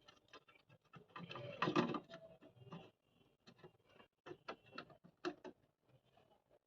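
Faint, irregular clicks and taps of small electronic parts being handled and set in place by hand, with a denser cluster about a second and a half in.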